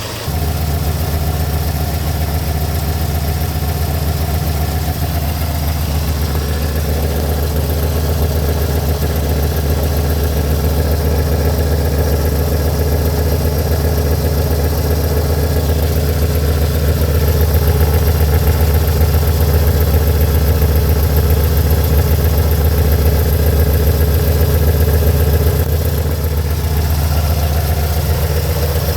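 1982 Mazda B2000's four-cylinder engine idling steadily, its EGR valve repaired so it no longer hangs open at idle.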